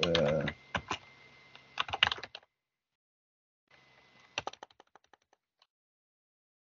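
Computer keyboard typing: two runs of quick keystrokes with a pause between them, then a few faint taps near the end, as a command is entered at a PowerShell prompt.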